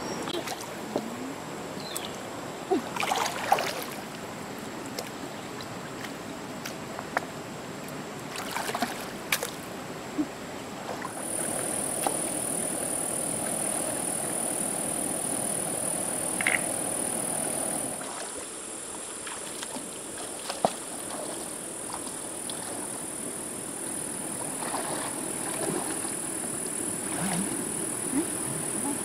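Shallow stream water sloshing and splashing as stones are lifted and set down in it, with scattered knocks of stone on stone. A steady high-pitched whine joins about a third of the way in.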